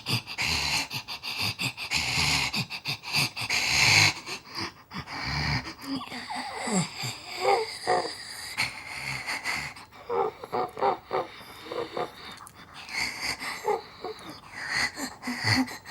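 Female zombie vocal sound effects: raspy, wheezing breaths and gasps, then a string of short growling groans that slide in pitch, one after another.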